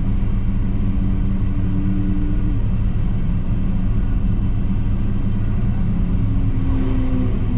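Car engines idling with a steady low rumble and hum, heard from inside a stationary car.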